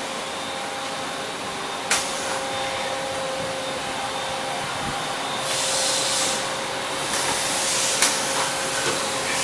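Haas SL30T CNC lathe running under power: a steady machine hum with a thin whine over a hiss, two sharp clicks about two seconds in and again near the end, and two spells of louder hissing in between.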